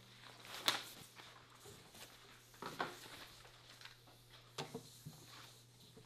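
Quiet classroom room tone with a low steady hum and a handful of light clicks and rustles from paper and pencils at the desks, the sharpest a little under a second in.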